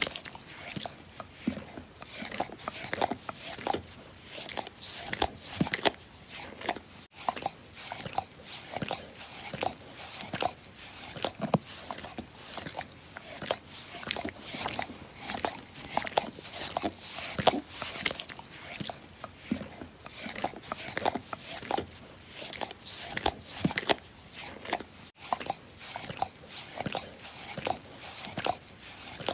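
A dog licking, with rapid wet smacking and slurping clicks of the tongue and mouth, several a second in an uneven rhythm.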